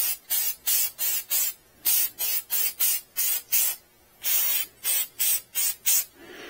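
Aerosol can of filter oil spraying onto a red pleated pod air filter in many short hissing bursts, about three a second, with a brief pause about four seconds in.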